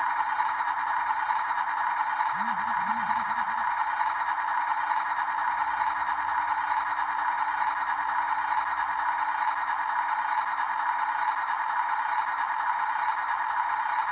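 Small electric motors and gearboxes of radio-controlled toy construction trucks whirring steadily, with a light rattle.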